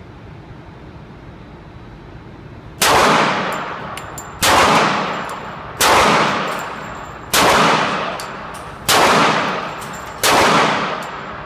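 Six shots from a .40 S&W handgun, fired at an even pace about one and a half seconds apart, starting about three seconds in, each trailing off in a long echo.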